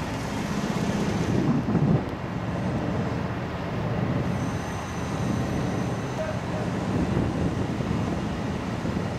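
Steady low rumble of road traffic, with a brief louder sound falling in pitch just before two seconds in.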